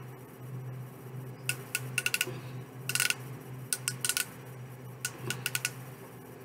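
Click-pen lip-treatment applicator being clicked repeatedly, a series of sharp small plastic clicks coming in quick clusters from about a second and a half in, to push the cream out to the tip. A steady low hum runs underneath.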